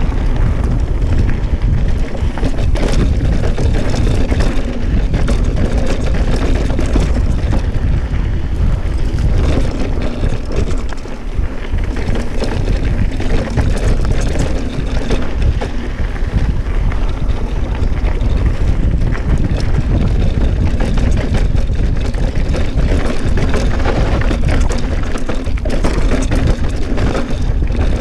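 Riding noise from a Specialized Stumpjumper mountain bike: wind buffeting the microphone as a deep, steady rumble, with frequent rattles and knocks from the bike throughout.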